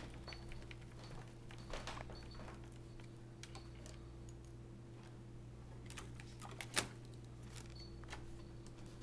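Scattered small clicks and taps of plastic laptop parts being handled during disassembly, the sharpest about two-thirds of the way through, over a steady low hum.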